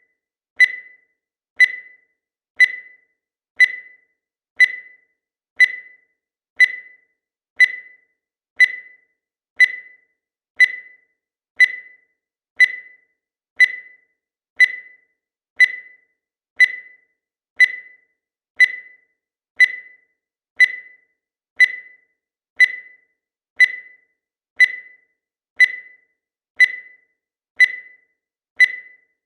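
Digital timer beeping once every second as it counts: short, high electronic beeps that fade quickly, evenly spaced.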